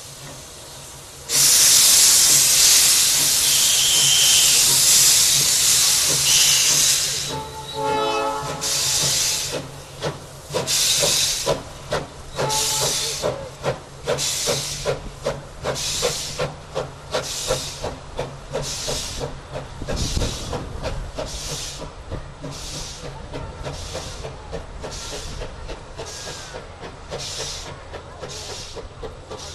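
Steam locomotive starting away: a loud hiss of steam for about six seconds, a short whistle blast, then evenly spaced exhaust chuffs, a little over one a second, fading as it pulls away.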